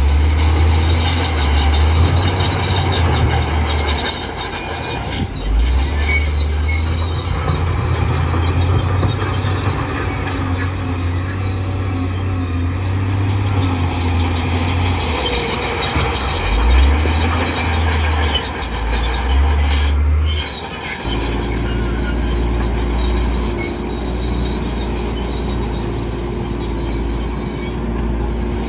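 Heavy diesel earthmoving machine working: its engine note rises and falls under load, with high metallic squealing over it. About two-thirds of the way through it settles into a steady, even running.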